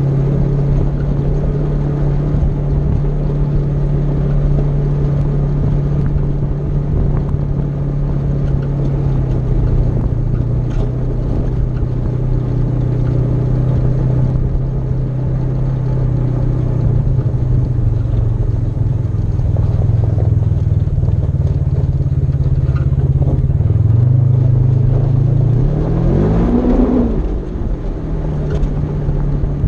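Polaris RZR side-by-side's engine running steadily under way on a gravel road. Near the end it revs up and then eases back down.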